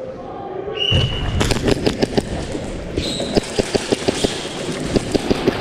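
A short high beep about a second in, then a rapid, irregular string of sharp cracks and snaps, several a second, from airsoft guns firing and BBs striking.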